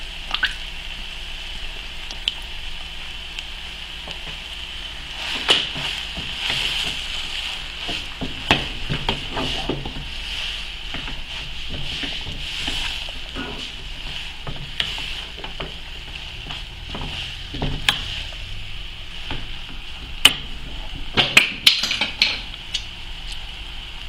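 Spatula stirring a thick shredded-chicken and cream filling in a metal pot, with scrapes and knocks against the pot, over a steady hiss.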